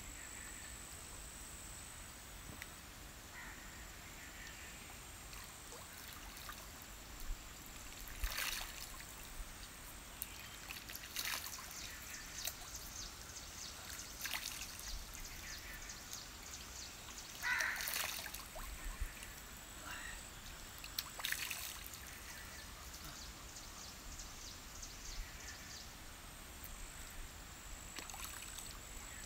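Faint outdoor night ambience: running water trickling steadily under a constant high-pitched whine, with a handful of sharp clicks about every three seconds through the middle.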